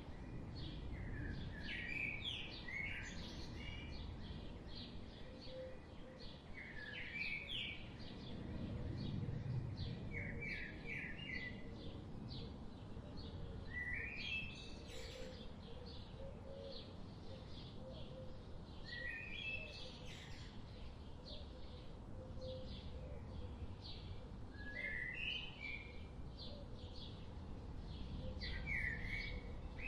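Forest birdsong: one bird repeats a short phrase of quick stepped notes every five or six seconds, over many faint, rapid chirps from other birds and a steady low rumble.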